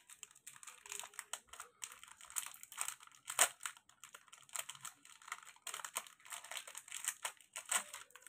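Paper gift wrapping being crinkled and torn off by hand: an irregular run of rustles and crackles, with the sharpest crackle about three and a half seconds in.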